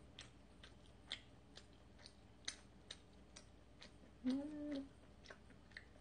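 Faint close-up chewing of a sticky Korean rice cake: soft wet mouth clicks and smacks at irregular intervals, about a dozen in all. About four seconds in, a short hummed "mm" of enjoyment.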